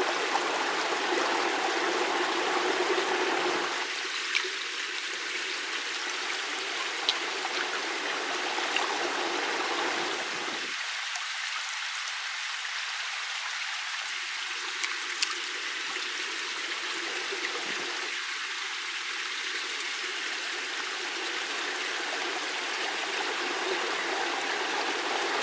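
Shallow water running steadily over rock, with a few faint clicks.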